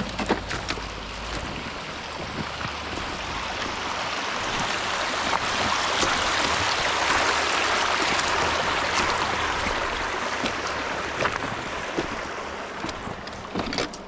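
Running water over river stones, swelling louder towards the middle and then fading, with scattered knocks of footsteps on loose cobbles.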